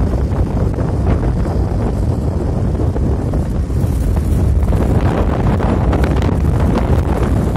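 Wind rumbling steadily on the microphone of a moving car, over the car's road noise.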